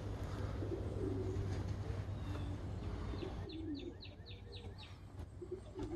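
Domestic pigeons cooing, with a small bird's quick run of about seven high chirps in the middle, over a steady low hum.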